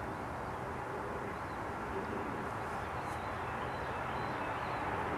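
Steady outdoor background rumble, an even low noise like distant traffic, with a faint thin high call a few seconds in.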